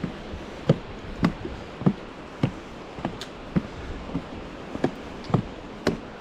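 Footsteps of a hiker walking along a trail at a steady pace, about one and a half steps a second, each a short thud.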